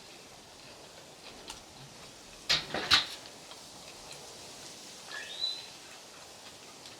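Eating sounds from a burger contest: two sharp bites or chomps about two and a half and three seconds in, then a short high chirp that rises and falls a couple of seconds later.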